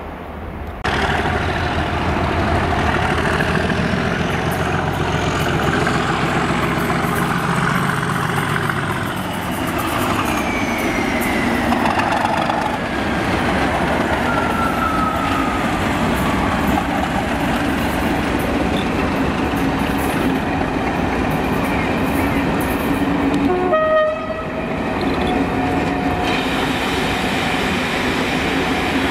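Class 37 diesel-electric locomotive passing close by, its English Electric twelve-cylinder engine running with a steady low note while wheels rumble and clatter on the rails. A high whine falls steadily in pitch as it goes by, and a brief pitched tone sounds about three-quarters of the way through.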